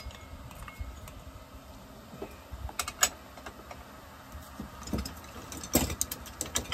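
Scattered clicks and clinks of metal tools and engine parts being handled on a workbench, a few sharp ones about three seconds in and a cluster near the end, over a low steady hum.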